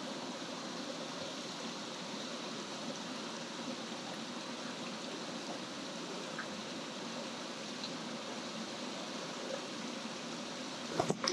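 Mountain stream water flowing steadily over rocks, an even rushing noise. A few sharp clicks come near the end.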